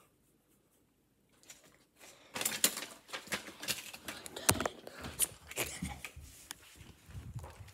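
Irregular clicks and rustling from a phone being handled close to its microphone, starting about two seconds in after near silence.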